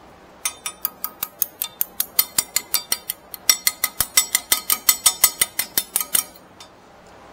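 Hand ratchet clicking: an even run of sharp metallic clicks, about six a second, in two runs with a brief break about three seconds in.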